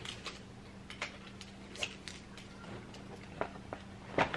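A plastic-and-mesh tote bag being handled: scattered soft clicks and small rustles as its material and handles are moved, over a faint steady hum.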